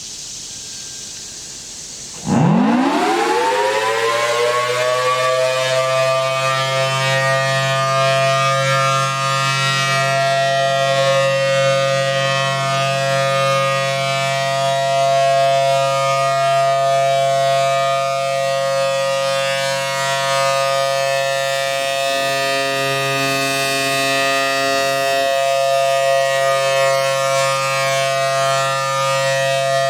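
Federal Signal Thunderbolt 1000T outdoor warning siren starting up about two seconds in. Its pitch rises quickly and levels off into the steady full-alert tone, a two-note chord from its 4/5-port chopper. Very loud.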